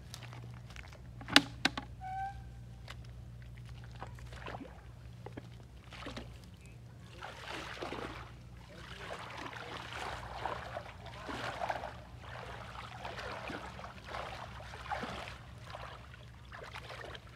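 Shallow muddy water splashing and sloshing as a person wades through it and gropes with his hands underwater, in irregular surges from about six seconds in. A single sharp click about a second in is the loudest sound, and a steady low hum runs underneath.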